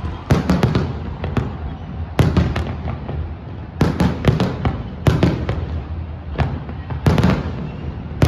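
Fireworks exploding in a rapid, irregular barrage of sharp bangs and crackles, with a low rumble and echo filling the gaps between them.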